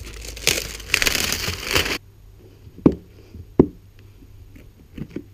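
Plastic wrapping crinkling and tearing as it is pulled off a new plastic hard case; the crackling stops abruptly about two seconds in. Then come two sharp clacks and, near the end, a couple of lighter clicks from the hard case being handled.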